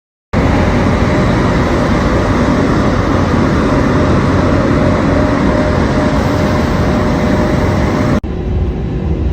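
Loud, steady noise of a vehicle in motion, with a faint steady hum running through it; it starts abruptly and cuts about 8 seconds in to a similar, slightly quieter stretch.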